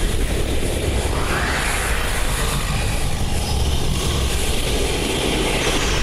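Male lion roaring: one long, rough, unbroken roar with a deep low end.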